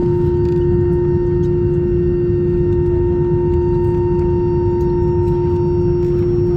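Cabin noise of an Airbus A321-232 taxiing with its IAE V2500 engines at idle: a steady low rumble with a constant mid-pitched hum and a fainter higher tone above it.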